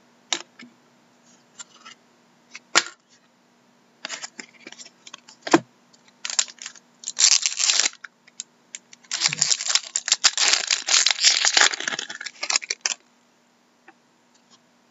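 A foil trading-card pack being torn open and crinkled, with the cards clicking and sliding against each other: a few sharp clicks first, then bouts of crackling rustle, the longest in the second half.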